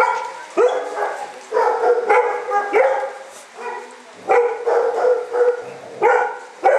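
Dog barking repeatedly in a kennel, about seven sharp barks. Some of the barks are drawn out and hold a steady pitch for up to a second.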